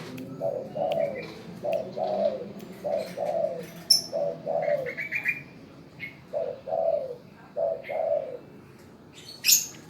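Spotted dove (tekukur) cooing, a repeated phrase of a short note followed by a longer falling note, about six times with a pause in the middle. Fainter chirps from other small birds are heard between the phrases, and a short loud rustle comes near the end.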